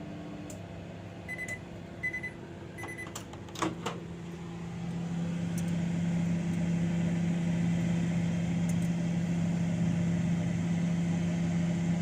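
Microwave oven: three short high beeps, a clunk, then the oven runs with a steady low hum that grows louder as it starts heating.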